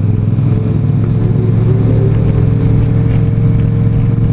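Motorcycle engine running at steady revs while riding.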